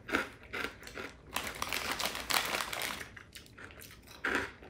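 Crunching of small, hard turtle-shaped crackers being chewed close to the microphone, mixed with the crinkle of a foil snack bag: an irregular run of crisp cracks.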